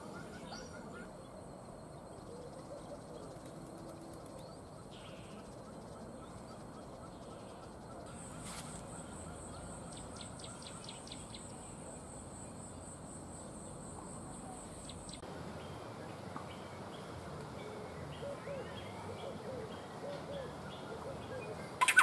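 Faint outdoor ambience: a steady high insect buzz from about eight seconds in to about fifteen seconds, faint scattered bird chirps, and low background hiss.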